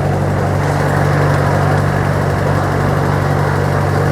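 Engine of a passenger ferry boat running steadily under way, a low even drone heard from aboard.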